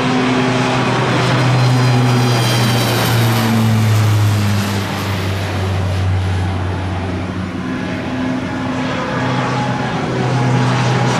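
Twin-engine turboprop military aircraft taking off and climbing out, a steady propeller drone whose low hum drops in pitch as one plane passes. Near the end a second turboprop's drone swells as it lifts off.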